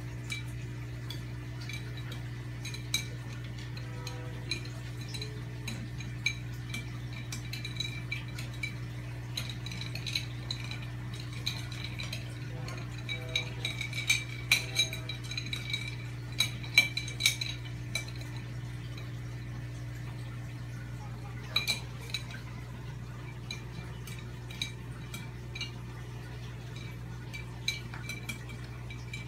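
Steady low hum of aquarium equipment, with irregular light clinks and drips of water that come thickest around the middle.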